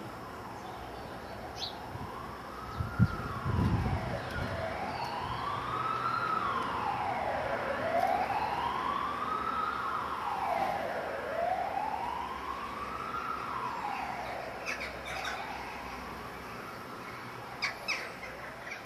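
Emergency vehicle siren in wail mode, its pitch slowly rising and falling about every three and a half seconds and fading out toward the end. A few faint clicks and a low thump come early on.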